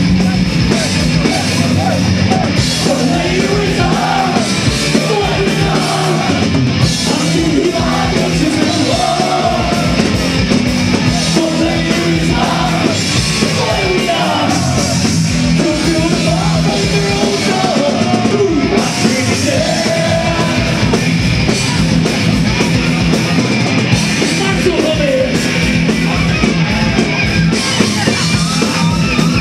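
Loud heavy rock music with a singing voice over it.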